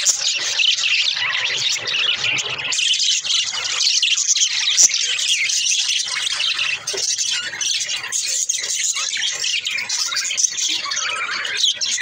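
A flock of budgerigars chattering and warbling continuously, many high chirps overlapping.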